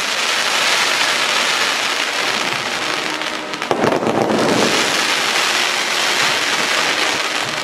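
Festa fireworks firing in a dense barrage: a steady crackling hiss of many rising comets and bursting shells at once, with a louder burst about four seconds in.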